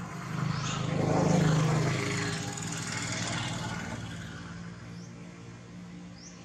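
A motor vehicle's engine running, growing louder over the first second or so and fading away over the next few seconds. A few short, high rising chirps sound above it.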